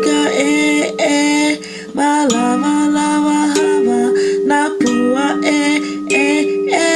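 A song on kalimba with a singing voice that holds long notes and slides between pitches.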